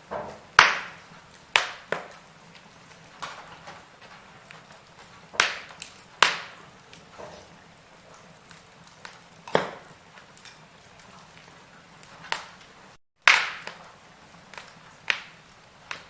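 Wood fire crackling in a fireplace: sharp, irregular pops every second or so over a faint steady hiss. The sound cuts out for an instant about thirteen seconds in, right before a loud pop.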